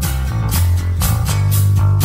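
Background rock music: guitar and bass over a steady drum beat of about two hits a second.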